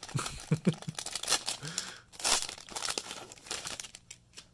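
Foil wrapper of a Magic: The Gathering booster pack being torn open and crinkled by hand, in several irregular rustling bursts that die down near the end.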